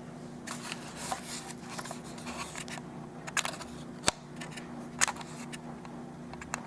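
A plastic camcorder being handled and turned over in the hands: rubbing and several sharp clicks.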